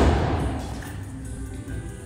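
A thrown axe strikes the wooden target board with one sharp thud right at the start, fading over about half a second. Background music plays throughout.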